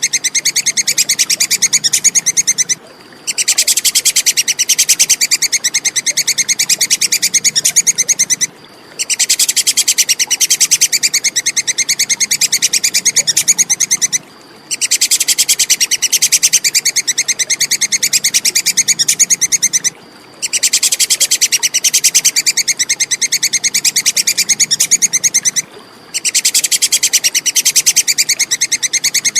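Squirrel ('tupai kekes') giving its shrill, rapid chattering call, a fast even run of high clicks. It comes in bouts of about five and a half seconds with a short break between each, repeating evenly as a looped recording.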